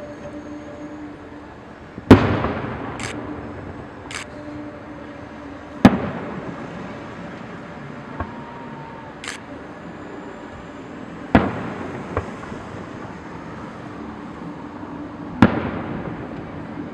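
Aerial fireworks shells bursting: four loud booms a few seconds apart, each trailing off in an echoing rumble, with short fainter hisses between them.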